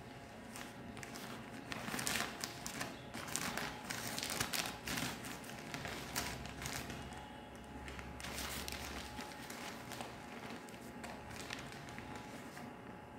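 Plastic courier mailer bag crinkling and crackling as it is handled and its top torn open, busiest in the first half and tapering off toward the end.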